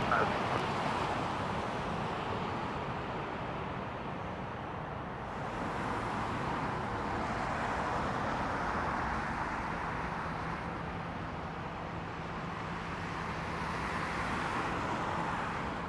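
Jet airliner's engines making a steady distant roar as it lands and rolls out on the runway, swelling and easing slightly, with a faint low hum joining about two-thirds of the way in.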